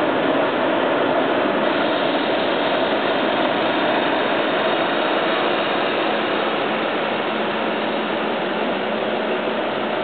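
1965 Metters Royal reverse-cycle air conditioner running: a steady rush of air from its fans, with the compressor running quietly underneath.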